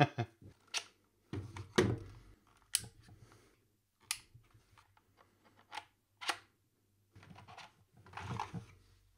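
A split mechanical keyboard with wooden palm rests being handled: scattered sharp plastic clicks and knocks as the two halves are pulled apart and turned over, with a couple of stretches of rubbing and sliding against the table.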